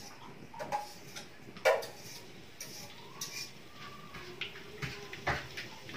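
Chopped seasoning paste frying in oil in a wok, giving scattered small pops and ticks over a low sizzle, with a sharper click about one and a half seconds in and another near the end.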